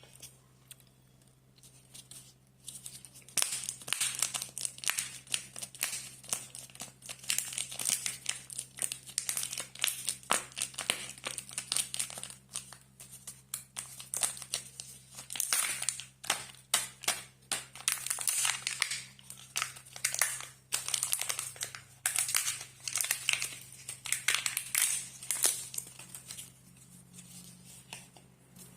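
Chocolate surprise egg wrappers crinkling and tearing as the eggs are unwrapped by hand, a dense, irregular rustling and crackling that starts about three seconds in, over a steady low hum.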